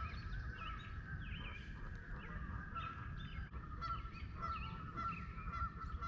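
Chorus of frogs calling: a steady high trill under many short, repeated chirps.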